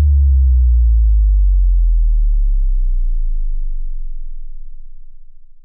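A deep synthesized bass tone, an intro sound effect, that slides slowly down in pitch and fades away over about five seconds.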